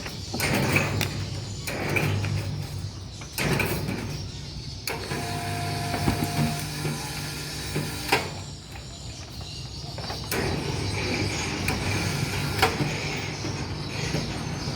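Remote-controlled electric hoist motor running in stretches with a low hum, stopping and starting again, with clicks and knocks from the lifting gear.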